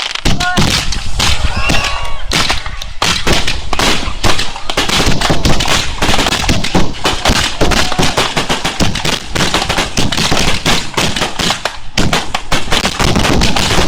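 Aerial fireworks going off in a rapid, continuous barrage, many bangs a second overlapping with no pause.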